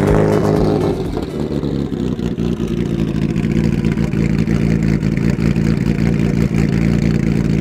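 Twin-turbo straight-six race engine of the Hasemi Motorsport R32 Nissan Skyline GT-R, its revs falling away in the first second and then settling into a steady idle.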